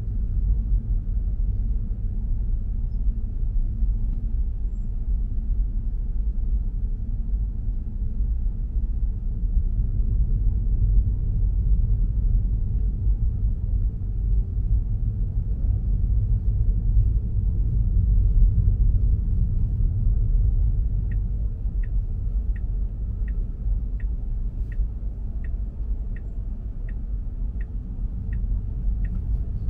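Car driving, with a steady low rumble of engine and road noise. About two-thirds of the way in, a regular high tick starts, about one and a half ticks a second, and carries on to near the end.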